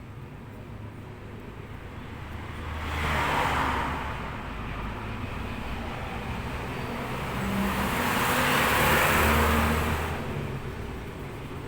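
Engine noise running steadily, swelling louder twice, around three seconds in and again from about seven to ten seconds, then easing back.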